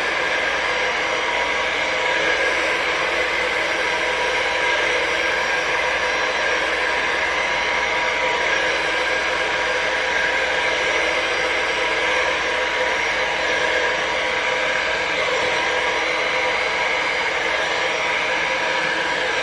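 Handheld blow dryer running steadily on its low setting, blowing wet acrylic pour paint across a canvas.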